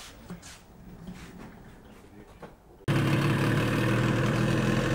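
A few faint clicks of metal engine parts being handled, then, about three seconds in, a sudden cut to a Parsun 30 two-cylinder two-stroke outboard running steadily on its first start after a rebuild.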